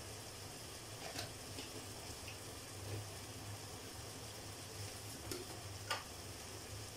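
Sausage slices and spices frying in oil in a pot, a faint steady sizzle over a low hum, with a few small clicks, the sharpest about six seconds in.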